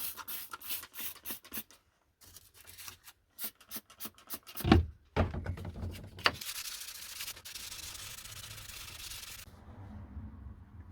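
Hand abrasive rubbing on saw metalwork: quick back-and-forth strokes, several a second, with a thump about halfway through, then a few seconds of steady continuous rubbing hiss.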